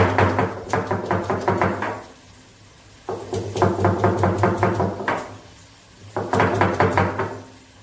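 Small onions and garlic being pounded on an ammi, a flat stone grinding slab, with its stone: quick rhythmic knocks in three runs of about two seconds each, separated by short pauses.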